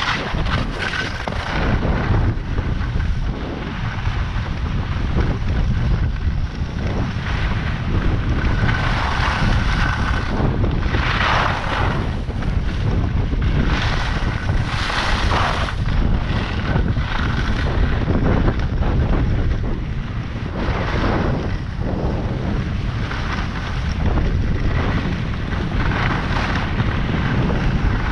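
Wind buffeting the microphone of a skier moving downhill, a steady low rumble, with recurring hissy scrapes of skis turning on packed snow.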